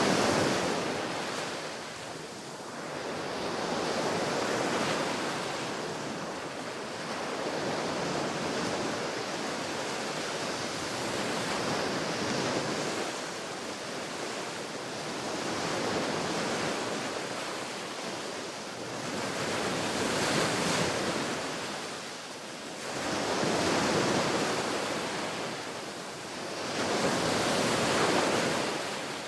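Ocean waves breaking on a beach, the surf swelling and falling back in slow, irregular surges a few seconds apart.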